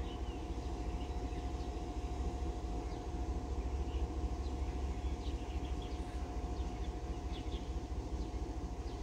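Diesel locomotive of a grain hopper train idling, a steady low rumble with a constant hum, while short high chirps come and go over it.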